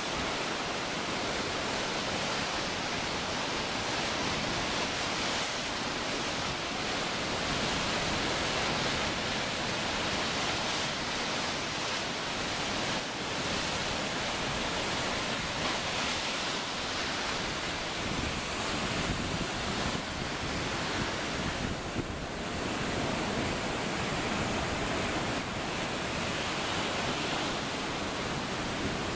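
Ocean surf breaking and washing through the wooden pilings of a fishing pier: a steady, continuous rush of waves, with wind buffeting the microphone.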